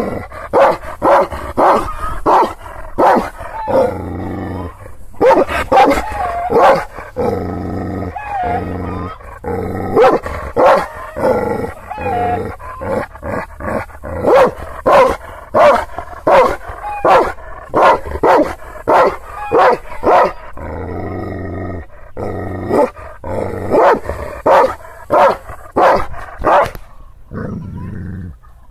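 Kangal shepherd dog barking at strangers: deep, angry barks in runs of about two a second, broken by short pauses. It is a guard dog warning off strangers it has not seen before. The barking stops shortly before the end.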